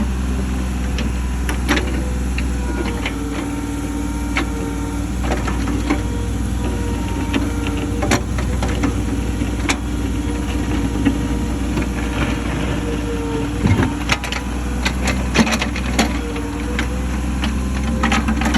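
Komatsu 30-6 mini excavator's diesel engine running steadily under working load, with a whine that rises and falls in the middle and scattered sharp clicks and knocks as it digs.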